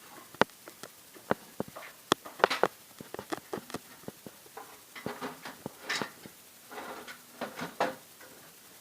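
Irregular light clicks, taps and knocks, as of handling parts or a lid, with a few short scraping, rustling stretches in the second half.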